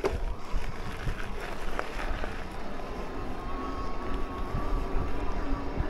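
Riding noise from an electric mountain bike on a track: a steady rumble of tyres and wind on the microphone, with small knocks and rattles from the bike over the rough ground. A faint steady whine comes in about halfway through.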